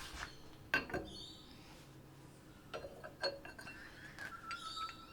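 A few light, separate metallic clicks and clinks from handling metal tools or the cast workpiece, with a faint steady high tone in the last second or so.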